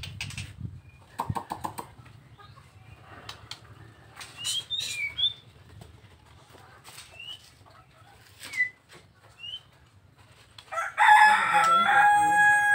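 A Nias white-rumped shama (murai batu) gives scattered sharp clicks and a few short whistled notes as it moves about its cage. Near the end a rooster crows loudly for about two seconds, starting rough and ending on a held note; this is the loudest sound.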